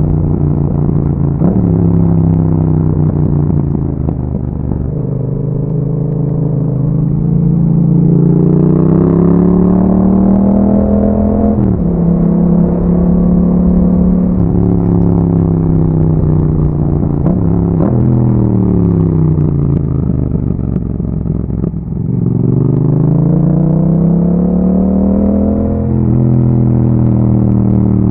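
Yamaha MT-07's parallel-twin engine breathing through an aftermarket Akrapovic exhaust under way. The engine note climbs under acceleration and drops sharply at each gear change, about four times. In between it holds steady or winds down as the bike slows.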